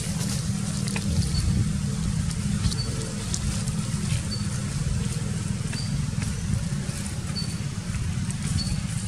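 A steady, low, fluctuating rumble with a short high chirp repeating about every second and a half.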